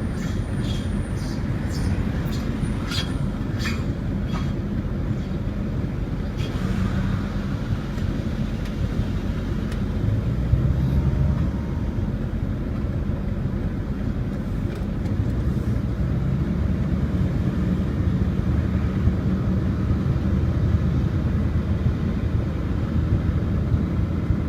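2002 Ford Excursion moving, with a steady low rumble throughout. In the first few seconds come short, repeated high-pitched screeches from a destroyed wheel bearing, with another brief one about six seconds in.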